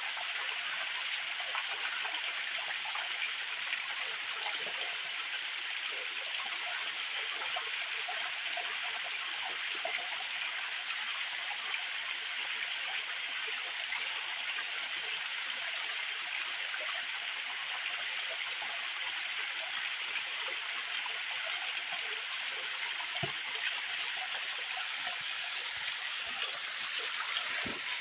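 Steady rushing of flowing water, an even unbroken hiss of stream or falling water.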